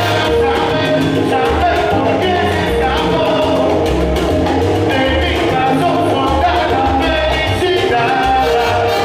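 Live salsa band playing, with a lead singer singing over congas, timbales, upright bass, keyboard and horns.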